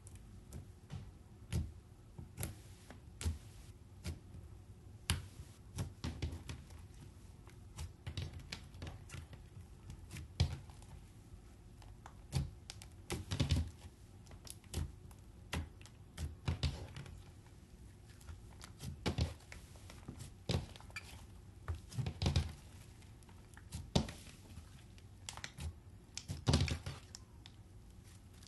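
Hands squeezing, kneading and stretching slime, giving irregular sharp pops and clicks, a few of them longer and crackling.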